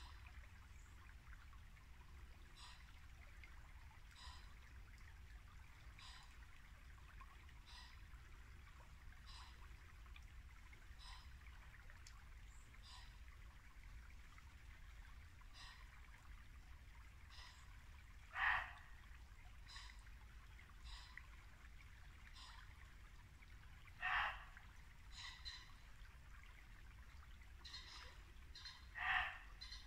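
Muntjac deer barking: three loud, short single barks about five seconds apart in the second half. Under them runs the steady babble of a shallow brook, and a fainter short call repeats about every second and a half.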